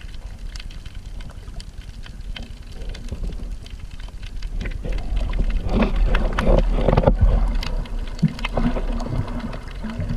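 A steady low rumble with wind buffeting the microphone, louder and gustier from about halfway through.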